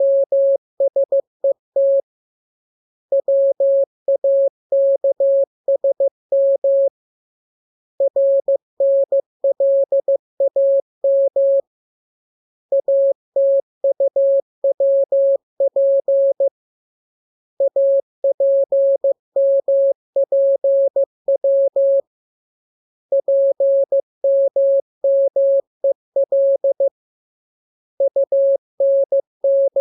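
Morse code (CW) practice signal: a single steady mid-pitched tone keyed into dots and dashes. The characters come in groups of about four seconds each, separated by pauses of about a second. These are the code groups of a training radiogram built from the lesson letters.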